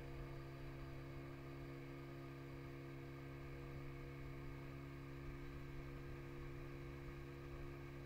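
Small motorboat's engine running at a steady speed as the boat cruises, heard as a faint, even low hum that does not change.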